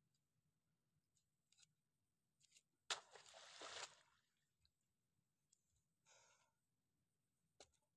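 Faint sounds of a spade digging wet mud: a sharp hit about three seconds in as the blade goes into the soil, followed by about a second of wet scraping, a shorter scrape around six seconds, and a click near the end.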